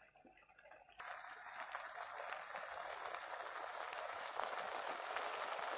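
Diced vegetables sizzling in a pot with a little oil and water, a steady crackly hiss that starts suddenly about a second in after near silence.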